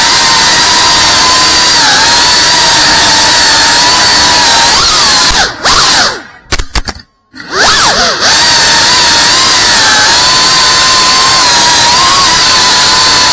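FPV quadcopter's brushless motors and propellers whining loudly, picked up close by its onboard camera, the pitch wavering with the throttle. About halfway through the whine falls and nearly cuts out for about two seconds, then climbs back to full.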